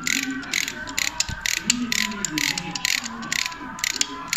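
Hand ratchet driver clicking in quick bursts, about three a second, as it is worked back and forth to run a bolt into a motorcycle engine casing.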